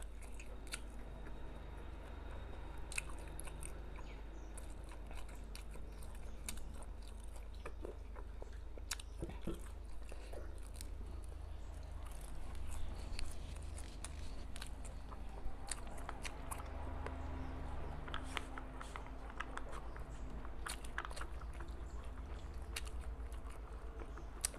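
Close-miked chewing and biting of a grilled sausage, with scattered short wet mouth clicks, over a steady low hum.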